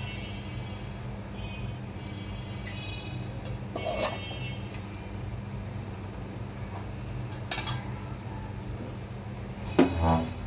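A metal spoon clinking against a nonstick frying pan a few times while khirsha filling is spooned onto a crepe, over a steady low hum; a louder knock near the end.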